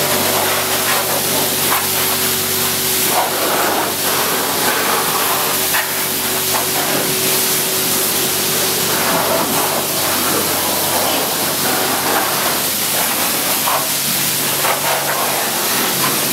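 Car-wash pressure-washer wand blasting water onto a pickup truck's bare steel frame and underside: a loud, steady hiss of spray over a low steady hum.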